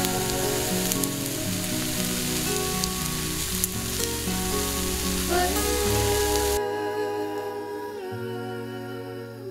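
Egg, zucchini and ham pancake batter sizzling as it fries in a nonstick pan. The sizzle cuts off suddenly about two-thirds of the way through, leaving soft acoustic guitar music with humming, which plays throughout.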